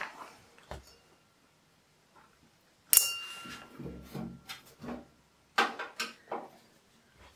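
A sharp metallic clink about three seconds in, then a ringing tone that fades over about two seconds, from the metal parts dish of screws. Several light clicks and knocks follow as hands work on the steel rack-mount case.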